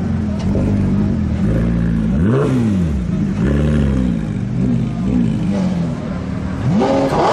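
Supercar engines idling and revving in short blips as a Porsche 911 GT3 pulls out, with a sharp, fast-rising rev near the end.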